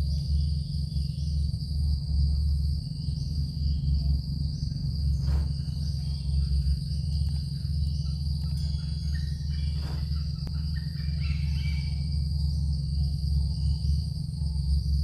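Insects chirping steadily in the forest, a high buzz with chirps about once a second, over a loud, constant low hum. Two faint knocks come about a third of the way in and again around two-thirds through.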